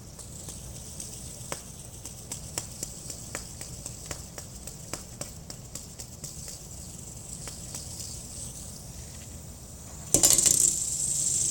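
A run of light, irregular clicks over a faint steady hiss, then, about ten seconds in, a loud burst of handling noise lasting over a second.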